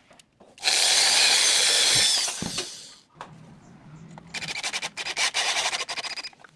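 Power drill running in two bursts on aluminium cabinet-door framing: a loud run of about a second and a half, then after a pause a quieter, rapidly pulsing run of about two seconds.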